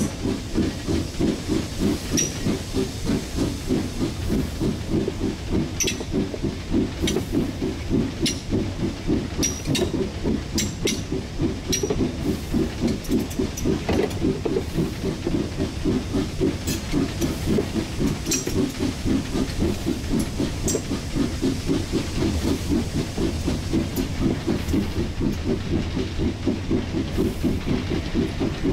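1943 Davenport-built steam locomotive running along under steam, its exhaust chuffing in an even, quick beat of about three a second over a steady hiss. Sharp clicks come now and then.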